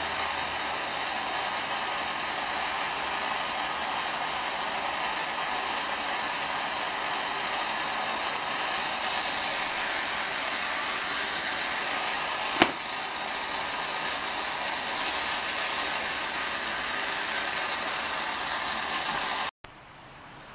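A steady, fan-like rushing noise with one sharp click a little past halfway; the noise cuts off abruptly near the end.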